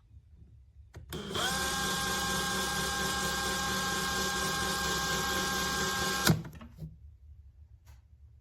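Bosch GSB 18V-55 cordless hammer drill motor spinning up about a second in, running at a steady speed for about five seconds, then stopping abruptly.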